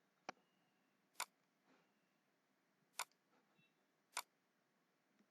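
Four sharp, isolated computer mouse clicks, unevenly spaced, against near silence.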